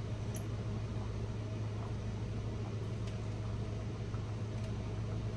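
Steady low hum of room background noise, with a few faint clicks.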